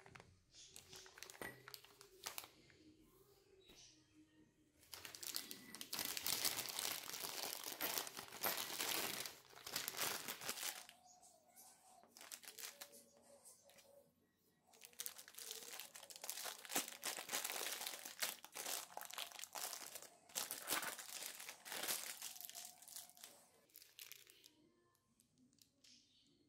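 Disposable plastic piping bag crinkling and rustling as it is handled and stuffed with cookie dough, in two long spells of crackling.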